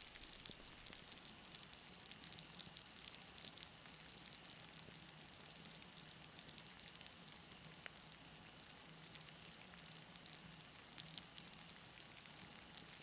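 Northern pike fillets frying: a low, steady sizzle with many fine crackles.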